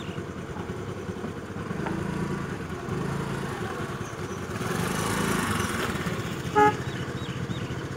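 Road traffic: motor vehicle engines hum steadily, one vehicle passes louder around the middle, and a horn gives one short toot near the end.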